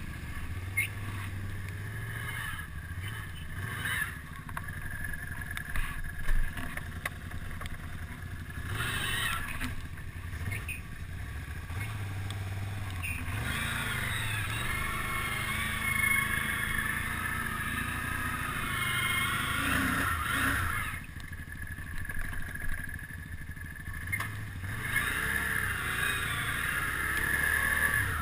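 Quad ATV engine running under load through deep mud, its pitch rising and falling with the throttle, with a higher whine that wavers in the middle stretch and again near the end.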